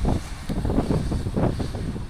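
Wind buffeting the microphone in irregular gusts, over the low rumble of a train moving away down the track.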